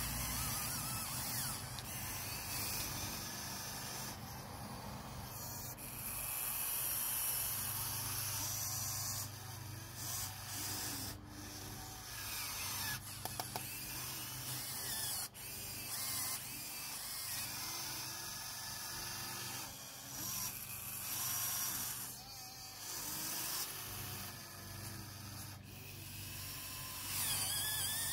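Electric motors and gearboxes of a Huina 1580 RC excavator whirring as the boom, arm and bucket move, the whine rising and falling as each function starts and stops, with a few sharp clicks partway through.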